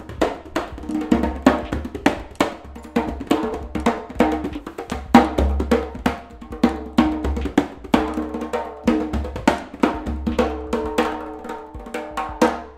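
Goblet-shaped hand drum played with bare hands: a fast, rhythmic pattern of deep bass strokes mixed with sharper slaps and ringing tones, stopping just at the end.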